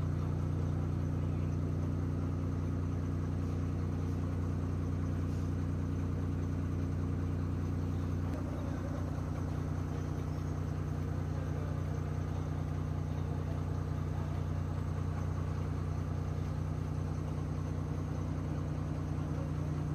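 Diesel truck engine idling steadily, heard from inside the cab. The low note of the idle shifts slightly about eight seconds in.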